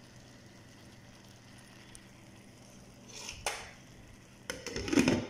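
Glass lid with a metal rim being handled and set down on a cooking pan: a short rustle ending in a click about three and a half seconds in, then a quick run of clicks and a ringing knock near the end as the lid settles on the rim, over a faint steady hiss.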